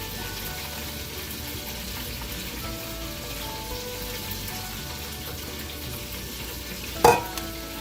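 Steady frying sizzle of hot oil, with faint background music. About seven seconds in there is one sharp clink.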